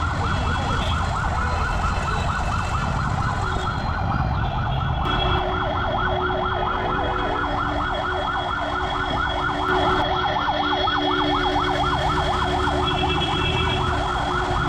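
Ambulance siren in its fast yelp, the pitch sweeping up and down several times a second without a break, over the rumble of traffic.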